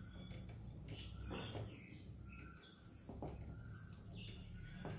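Short clicks with high squeaks, in two bursts about a second and three seconds in, from a screwdriver backing out the screws of a Gigabyte graphics card's fan shroud. Faint bird-like chirps sound in between.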